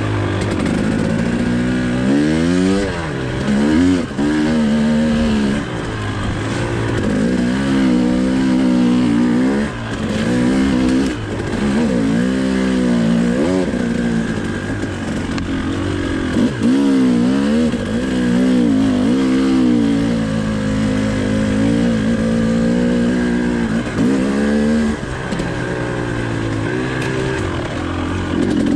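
Two-stroke engine of a 2019 Husqvarna TE 300i enduro bike under way on a trail, heard from the handlebars. Its revs rise and fall every second or two, with short drops several times as the throttle is rolled off.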